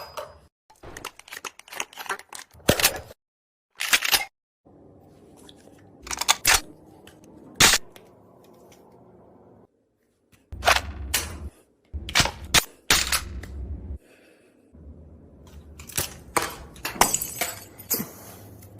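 Airsoft guns being reloaded: a series of sharp plastic-and-metal clicks and clacks as magazines are seated and the actions are cocked, heard in several short takes with the background hum cutting in and out between them.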